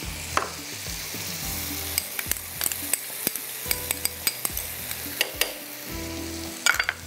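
Onion-tomato masala sizzling in hot oil and butter in a non-stick frying pan, with yogurt and cream just added. A steady sizzle with scattered sharp pops and clicks.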